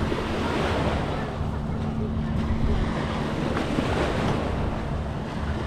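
Surf washing on the beach with wind buffeting the microphone, over a steady low engine hum.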